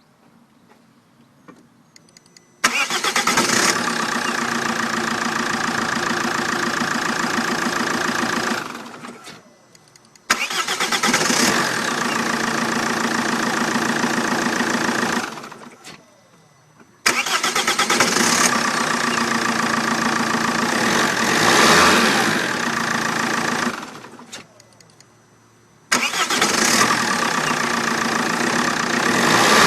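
Vauxhall Vectra 1.9 CDTI four-cylinder turbodiesel being started four times in a row, each start catching suddenly and running steadily for about five to seven seconds before dying away. The engine revs up near the end.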